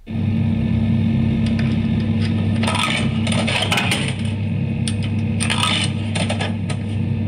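A small coin machine running with a steady low hum, starting abruptly. Coins clink and rattle through it in two clusters, about three seconds in and again about five and a half seconds in.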